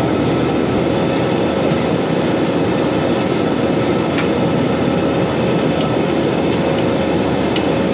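Cabin noise of an Airbus A320-family airliner climbing out after takeoff: the jet engines and the airflow past the fuselage make a steady, even rush with a few steady hums in it.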